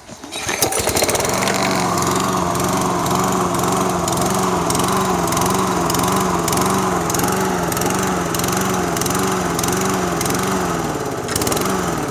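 A Toro SR4 Super Recycler's 159cc lawn mower engine starts up about half a second in and runs with its speed rising and falling over and over: the engine is surging, which the owner suspects is caused by a dirty pilot jet in the carburetor.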